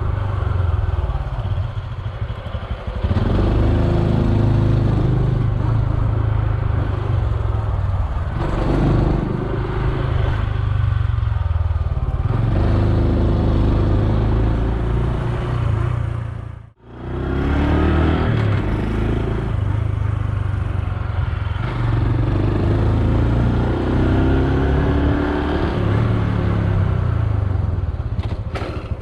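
Honda Super Cub C125's single-cylinder four-stroke engine running under way, rising in pitch again and again as it accelerates, over a steady rush of road and wind noise. The sound cuts out for an instant a little past halfway.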